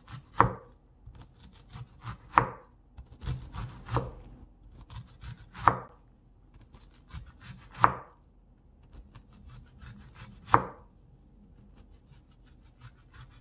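Chef's knife dicing an onion on a wooden cutting board: runs of quick, light taps of the blade on the board, with a louder knock every two seconds or so. The taps thin out near the end.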